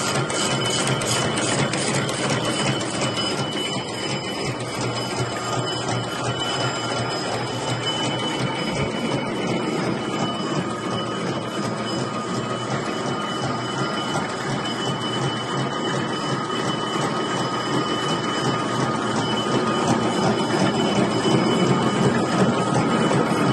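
Double-twist barbed wire machine running steadily: a fast, even mechanical clatter of gears and twisting mechanism with a steady high whine, growing a little louder near the end.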